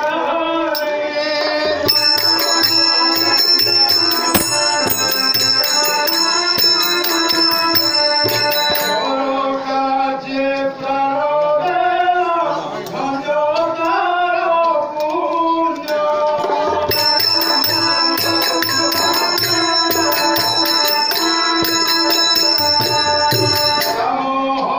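Folk-style devotional song performed live: a voice singing over a steady held instrumental drone. Jingling hand percussion, like small cymbals or a tambourine, beats a steady rhythm in two long stretches, the first starting about two seconds in and the second beginning past the middle.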